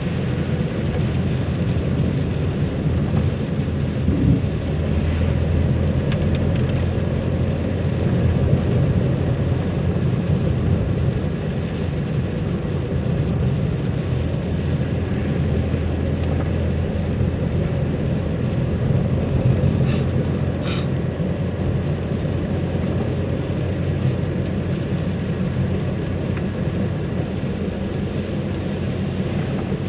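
Steady drone of a car's engine and tyres on a wet road heard from inside the cabin, with rain falling on the car. Two brief clicks about twenty seconds in.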